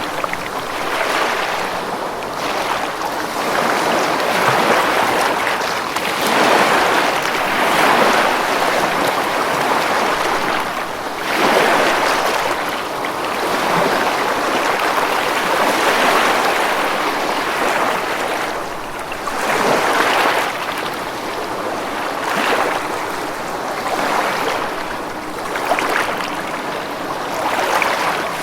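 Ocean waves breaking on a beach: a steady wash of surf that swells and ebbs every few seconds.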